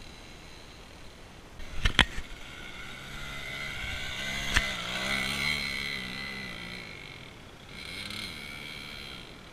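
Delta RMR 24's small engine revving up and falling back. There are a few clicks about two seconds in and a sharp click in the middle of the rev.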